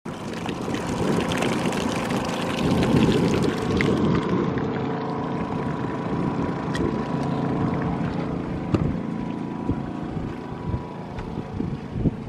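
Water rushing past a sailboat's hull as it moves under way, loudest a few seconds in, over the steady drone of an engine and wind on the microphone, with a few light knocks near the end.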